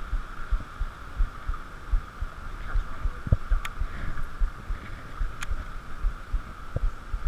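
Muffled, irregular low thumps on a chest-mounted action camera in its waterproof housing as its wearer wades and casts in floodwater, over a faint steady hum. Two sharp clicks come about three and a half and five and a half seconds in.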